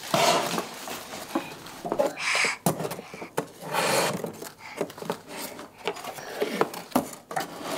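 Small handling noises in a small room: rustles and breathy hisses with a few sharp light taps, as toddlers push sorghum-pith sticks into holes in a homemade toy.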